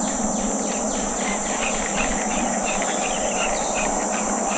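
Steady chorus of insects, a continuous high-pitched buzz with dense flickering chirps, over a low steady hum.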